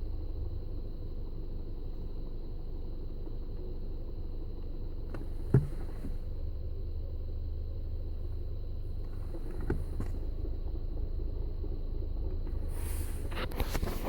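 Skoda Octavia A7 1.4 TSI idling in neutral with the clutch pedal released, a rattle from the clutch running under the steady engine sound: a clutch fault, and the clutch was condemned to replacement. A sharp click about five and a half seconds in.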